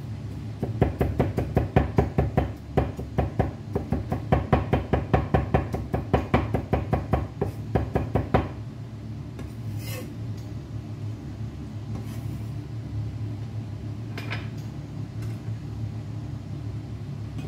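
Kitchen knife mincing crushed garlic on a cutting board: a fast, even run of chops, about five a second, for about eight seconds, then stopping, with a few single taps afterwards.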